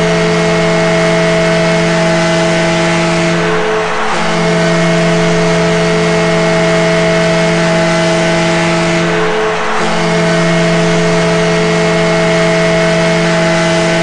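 New Jersey Devils arena goal horn: a loud multi-tone horn chord held in long blasts, dipping briefly about four and nine and a half seconds in, over a steady roar of noise.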